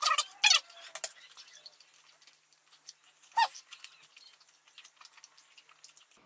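Wet, clicking chewing of a large mouthful of chewing gum, with mouth smacks. There are short loud squeaky sounds at the start and one falling squeak about three and a half seconds in.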